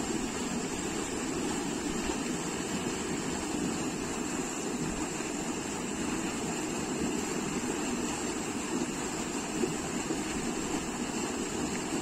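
Canal water pouring through a narrow spillway and churning white over rocks, a steady, unbroken rushing sound.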